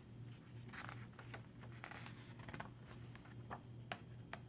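Faint rustling and light taps of a paper picture book being handled, its pages turned, over a low steady hum.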